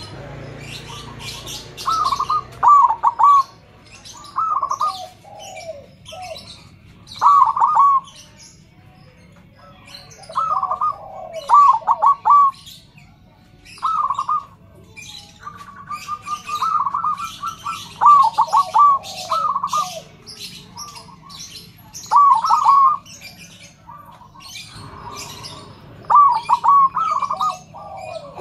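Zebra dove (perkutut) cooing: loud short phrases of quick staccato coo notes, repeated every two seconds or so, with fainter high chirping of small birds throughout.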